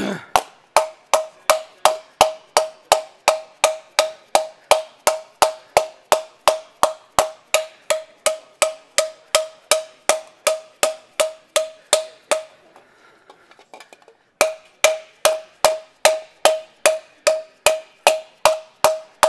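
Rubber mallet striking a formed aluminium panel on a post anvil, a steady run of blows at about three a second, each with a short metallic ring, as the panel is smoothed out. The blows stop for about two seconds near the end, then start again.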